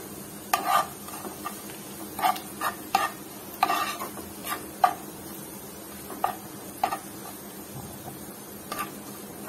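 Spatula stirring and scraping in a frying pan, about a dozen irregular scrapes and knocks over a steady sizzle of onions with chili powder and turmeric frying in mustard oil.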